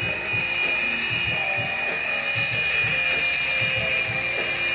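Small electric motors of a two-channel infrared toy helicopter, giving a steady high-pitched whine as it flies.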